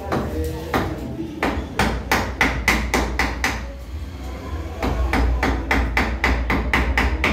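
Hand tool striking a small wooden block in quick sharp knocks, about four or five a second, in two runs with a short pause between them. A low steady hum sits underneath.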